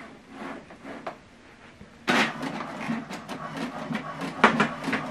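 HP DeskJet 2620 inkjet printer starting a print job: it kicks in suddenly about two seconds in, with the whirr of its paper-feed mechanism and a run of clicks and clatter, and a sharp click near the end.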